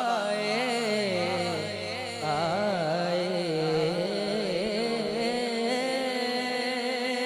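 Male naat reciter singing a long, drawn-out phrase with a wavering, ornamented melody.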